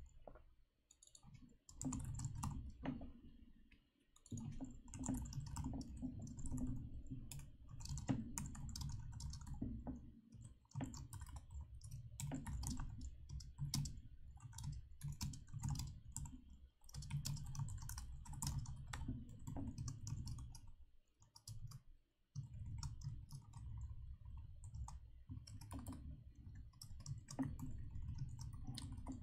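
Typing on a computer keyboard: quick runs of key clicks in spurts, with brief pauses between them.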